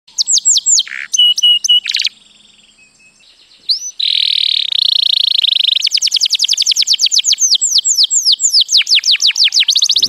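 Recessive white canary singing: quick runs of repeated high, downward-sweeping notes, a brief pause about two seconds in, then a buzzing trill and a long fast run of falling notes, several a second.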